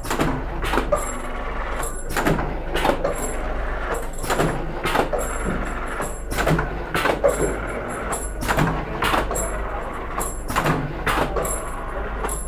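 Automatic vertical pouch packing machine for spice powder running: a steady motor hum with repeated sharp clacks of its mechanism, several per cycle, in an even rhythm.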